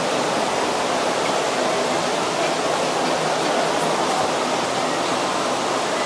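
Steady rush of the multi-storey indoor waterfall, water streaming down the wall in a continuous curtain into the pool below.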